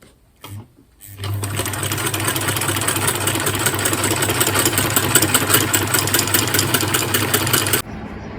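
Domestic sewing machine running steadily, its needle stitching through cardboard in a fast even patter over a low motor hum. It starts about a second in and stops abruptly near the end.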